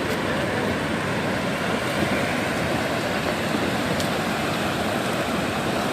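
Steady engine noise of a fishing boat at sea, mixed with wind and water.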